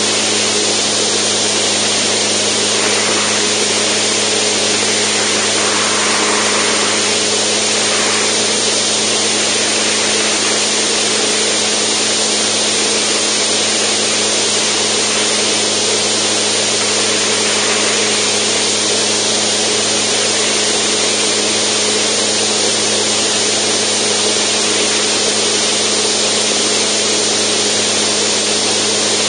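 Zenith STOL CH750 light aircraft's engine and propeller running steadily in cruise, a constant drone with an even hum, under heavy wind rush over the microphone.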